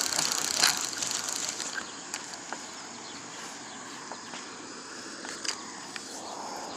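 Vintage 1950s Crown Planet Junior spincast reel being cranked, its gears making a fast, ratcheting clicking that stops about two seconds in. Only a few scattered clicks follow.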